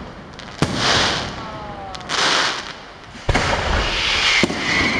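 Aerial firework shells bursting: four sharp bangs about a second or so apart, the second one weaker. Each bang is followed by about a second of hissing as the gold stars burn and fall.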